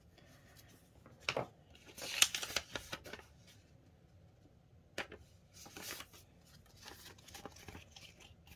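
Polymer banknotes and clear plastic binder envelopes being handled: crinkly rustling in short spells, loudest about two seconds in, with a couple of sharp clicks.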